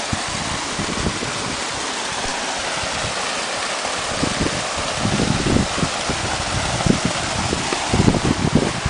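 Steady rush of falling and running water from a canyon waterfall and stream, with irregular low rumbles from wind buffeting the microphone that pick up about halfway through.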